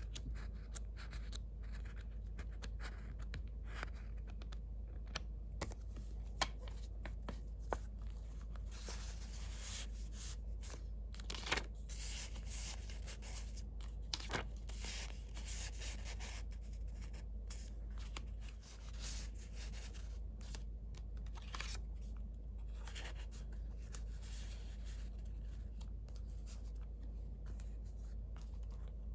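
Paper and card of a handmade junk journal rustling, sliding and flapping as pages, cards and envelopes are lifted, flipped and tucked back into pockets, with small clicks and a few louder swishes.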